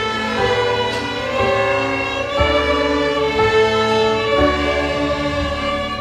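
A children's string orchestra of violins and cellos playing held, bowed notes that change about once a second, starting to fade out near the end.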